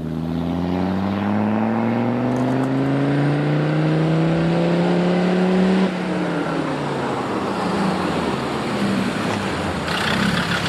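Land Rover Discovery 2's Td5 five-cylinder turbodiesel under hard acceleration on a test drive with freshly replaced injector seals and a little more turbo boost: the revs climb steadily for about six seconds, then drop sharply as the driver changes gear or lifts off, and the engine runs on at steadier revs.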